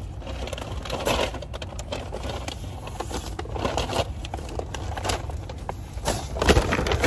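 Paper grocery bags rustling and crinkling as they are lifted out of a shopping trolley and set down in a car boot, with a louder knock as a bag lands near the end.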